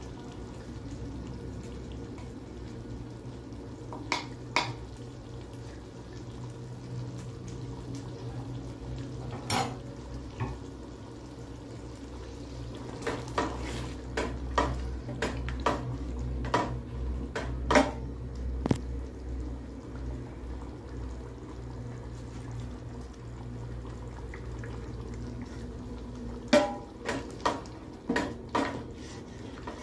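A ladle stirring a thick mutton and lentil curry in a large aluminium pot, clicking and knocking against the pot's sides in irregular clusters, busiest in the middle and near the end, over a steady low rumble.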